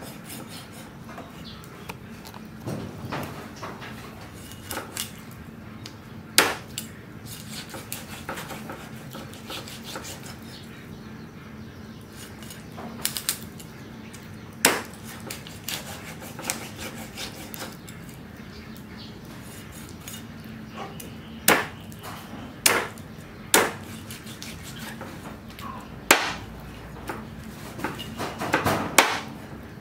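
Steel cleaver chopping raw fish into pieces on a thick wooden chopping block: sharp, irregular chops a second to several seconds apart, each blade strike knocking into the wood.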